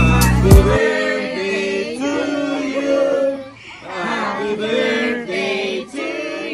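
Upbeat intro music with a beat cuts off under a second in; then a group of voices sings a birthday song together, unaccompanied.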